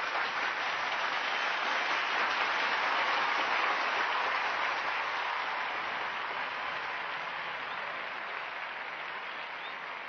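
A large audience applauding, a dense wash of clapping that swells over the first few seconds and then slowly dies away.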